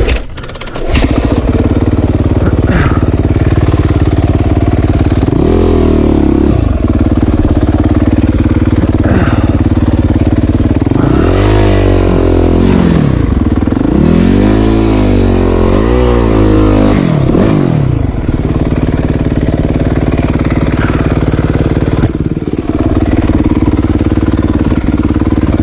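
Dirt bike engine idling, with the throttle revved up and down several times: once about five to seven seconds in, then in a run of revs from about eleven to eighteen seconds in.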